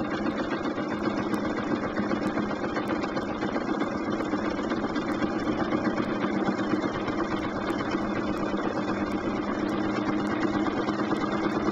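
Bernina sewing machine running steadily at stitching speed during free-motion quilting, the needle going up and down continuously as the quilt is moved under it.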